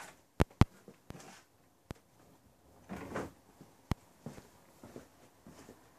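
A rope hoist being handled: a few sharp knocks, two loud ones close together about half a second in and another near four seconds, with a rustle of rope about three seconds in.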